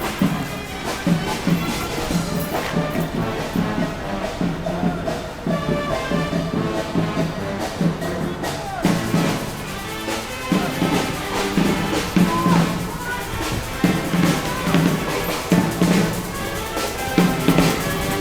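Street brass band playing live, with repeated low bass notes under the horns and steady drumming.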